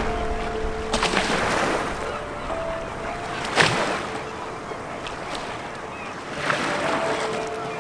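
Sea waves washing on a rocky shore, surging several times with one sharp burst about halfway through, under background music of slow, held chords.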